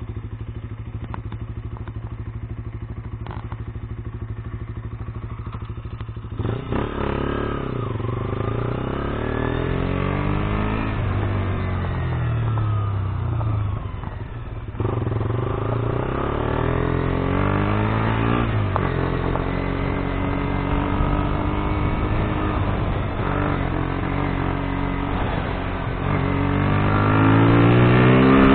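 KTM Duke 125's single-cylinder four-stroke engine running at low, steady revs, then from about six seconds in pulling away, its pitch climbing and dropping several times as it shifts up through the gears, with a strong rise near the end.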